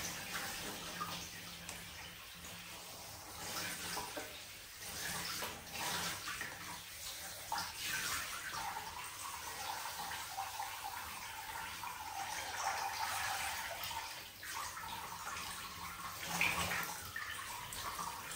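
Bath water splashing unevenly as someone is washed in a tub.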